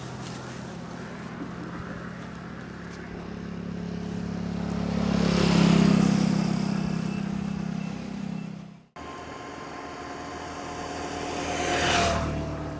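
A motor vehicle's engine growing louder as it passes close by, peaking about six seconds in and fading. After a sudden cut, a second vehicle passes and peaks near the end.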